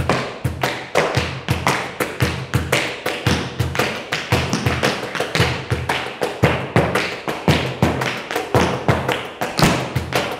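Tap shoes striking a wooden floor in a quick, continuous rhythm, several taps a second, with heavier heel drops among the lighter toe taps.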